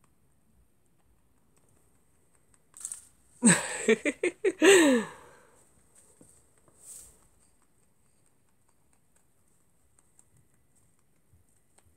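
A person's short laugh, a few quick pulses ending in a drawn-out falling vocal sound, a few seconds in; the rest is nearly quiet with faint rustles.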